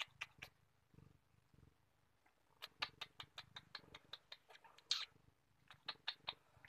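A domestic cat purring faintly right against the microphone, with runs of quick sharp clicks at about five or six a second in three bursts; the loudest click comes about five seconds in.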